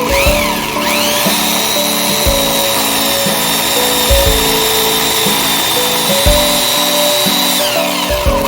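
Ryobi CS-295SG electric chainsaw's motor spinning up about a second in, running at a steady high whine, then winding down near the end. Background music plays throughout.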